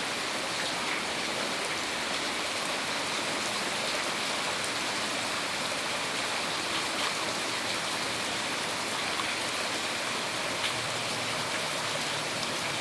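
Steady rain falling, an even hiss with scattered drops striking a surface.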